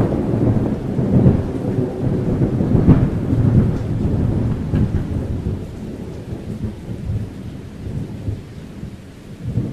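Deep, rolling thunder-like rumble, swelling loudly a few times in the first seconds and then fading lower toward the end.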